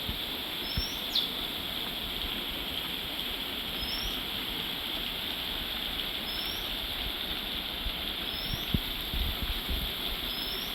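Heavy rain falling in a steady hiss. Over it a bird gives a short high chirp every two seconds or so, with one falling whistle about a second in. A few dull low thumps, likely heavy drops, come near the start and toward the end.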